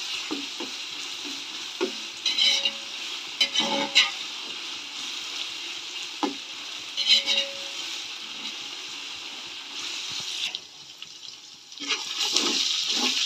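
Onions, green chillies, herbs and ginger-garlic paste sizzling in hot oil in a large aluminium pot, fried until the raw smell of the paste goes, while a metal spatula stirs and scrapes the pot several times. The sizzle drops away for about a second near the end, then returns.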